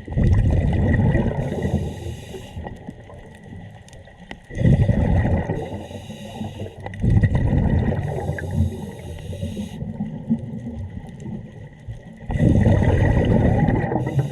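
Scuba diver breathing through a regulator underwater: a hiss on each inhalation alternates with a gush of exhaled bubbles, over several breaths. A faint steady high tone runs underneath.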